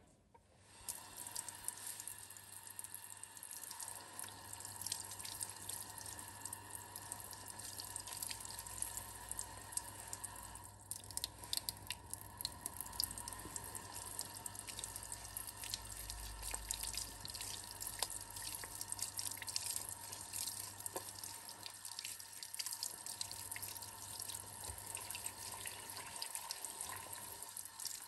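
Water from a tap running into a ceramic sink and splashing as paint is rinsed off painting tools by hand, with many small drips and splashes. It starts about a second in.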